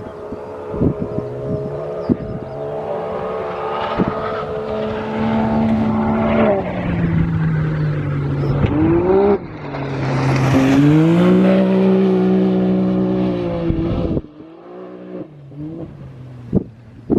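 Off-road race car engine being driven hard: the revs climb, drop sharply at gear changes about 6 and 9 seconds in, then climb again to their loudest. About 14 seconds in the revs fall away. A few sharp knocks sound in the first seconds.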